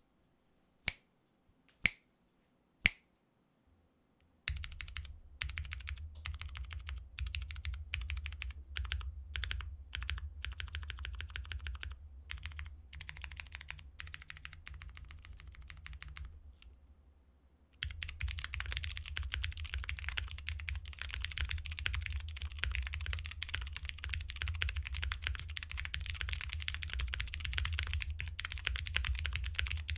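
Typing on a gasket-mounted Vega mechanical keyboard with lubed Cherry MX Hyperglide Brown tactile switches. Three single sharp clicks about a second apart come first, then steady typing starts about four seconds in, breaks off briefly past the middle, and resumes as faster continuous typing.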